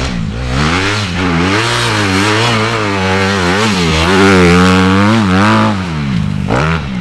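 Dirt bike engine revving hard as the rider works the throttle, its pitch rising and falling over and over, dropping away about six seconds in before picking up again.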